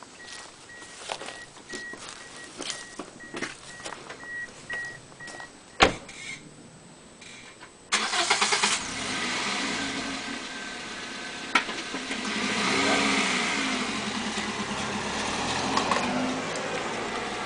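A car's warning chime beeps on and off and a car door shuts about six seconds in. About eight seconds in the car's engine cranks, catches and keeps running, rising in speed a couple of times.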